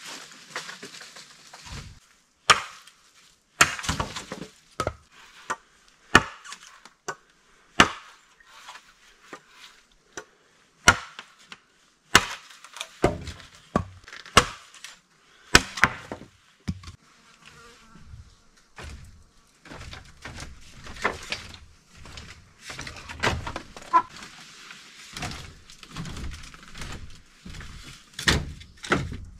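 Irregular hollow knocks and clatters of bamboo poles and wood being handled and dropped onto a pile, over a faint insect buzz.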